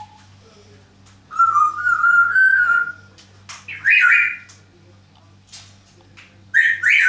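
African grey parrot whistling: one long wavering whistle, then two shorter rising whistles, about four seconds in and near the end.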